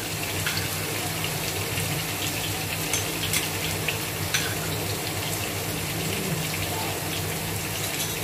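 Chicken pieces frying in oil on low flame: a steady sizzling hiss with scattered small crackles and pops, over a low hum.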